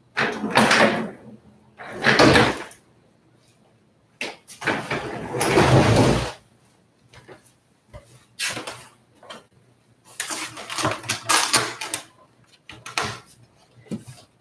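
Rustling, bumping and shuffling as a person moves an office chair and handles things, in a string of separate noisy bursts with short quiet gaps.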